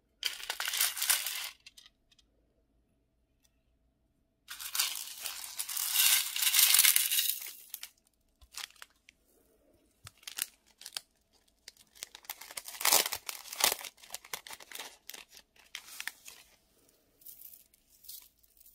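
Small plastic packets of glitter, beads and sequins handled and emptied into a glass baking dish: two noisy stretches of rustling and pouring, the second about three seconds long, then many small scattered clicks and taps as sequins and beads land on the glass.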